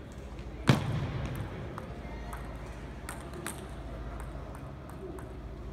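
Table tennis rally sounds in a large hall: a loud, sharp hit less than a second in with a short low ring after it, then two light ball clicks a few seconds later, over a steady low hall hum.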